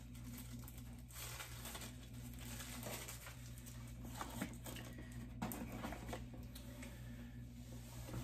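Faint rustling and handling noises of packaging being rummaged from a box, with two sharper taps about four and five seconds in.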